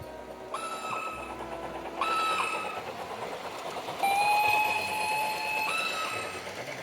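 Train air horn sounding several chords: two short blasts, then a longer one of about two seconds that changes pitch near its end.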